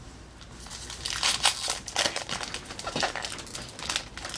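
Foil wrapper of a Pokémon TCG Roaring Skies booster pack crinkling and rustling in the hands as the pack is opened, in a run of irregular crackly bursts starting about a second in.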